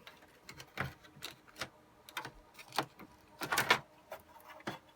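A series of irregular clicks and light knocks as a server motherboard is slid down into its chassis and positioned, with a denser cluster of clicks about three and a half seconds in.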